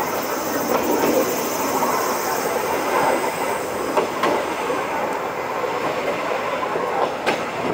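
Okuizumo Orochi passenger train running along the track: a steady rumble of wheels on rail, with a few sharper clicks as the wheels cross rail joints, two of them about four and seven seconds in.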